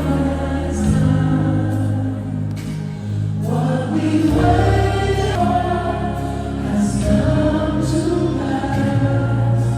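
Gospel music: a choir singing held notes over a band with a steady bass line and regular cymbal or drum strokes.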